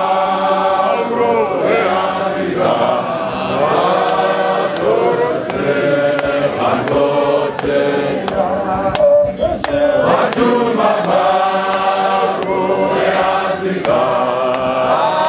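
A congregation of many voices singing a hymn together in Shona, sung as a chant, with sharp taps about twice a second keeping time.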